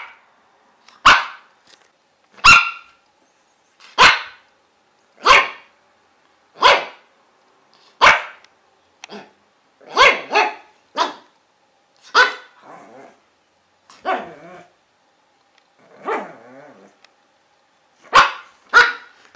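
A dog barking in single sharp barks about every second and a half, then a few quicker barks with softer, rougher, drawn-out sounds in between, and two barks close together near the end.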